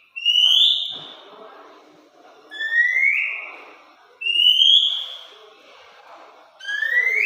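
Oriental magpie-robin (kacer) singing: four loud, clear whistles, each rising in pitch and lasting about a second, spaced roughly two seconds apart, over softer chattering song.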